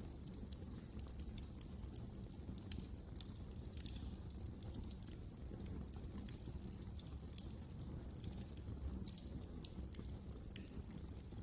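Fire in a fireplace crackling: irregular sharp pops and snaps over a low, steady rumble.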